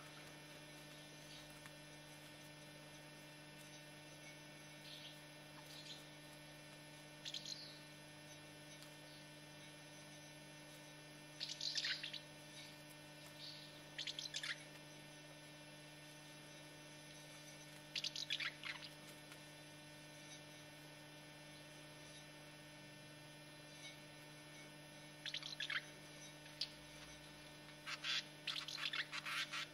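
Common house martins fighting on the ground: short bursts of rasping chirrups, in clusters a few seconds apart and thickest near the end, over a steady low electrical hum.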